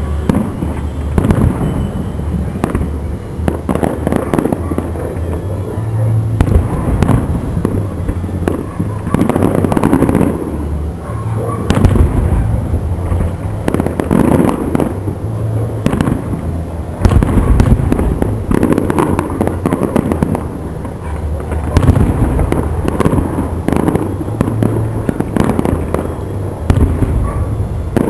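A fireworks display: aerial shells bursting one after another in a dense run of bangs.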